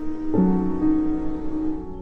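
Background music: a soft, sad piano piece with a new chord struck about a third of a second in.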